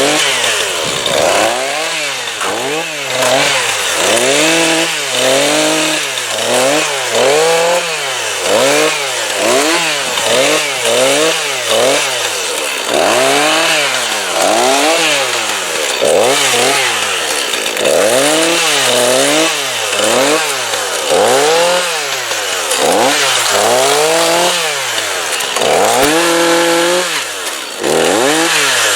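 Two-stroke chainsaw revved up and down over and over, about once a second, with its pitch rising and falling each time. Near the end it is held at high revs for about a second.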